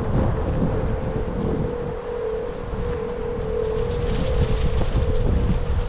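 Wind buffeting the microphone, a rough rumbling rush, with a steady hum underneath.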